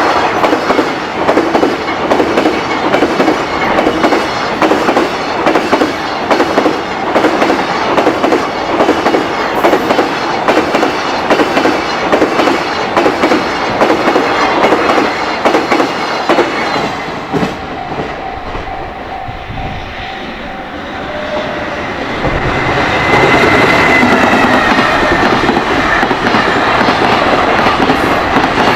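High-speed container freight train passing close by, its wagon wheels clattering rapidly and evenly over the rail joints. About two-thirds of the way through the clatter fades for a few seconds, then a louder rumble returns with a high whine that falls slightly in pitch.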